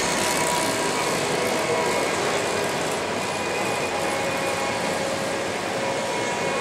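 Steady ambience of an indoor velodrome: an even rushing noise with a few faint, steady hum tones running through it.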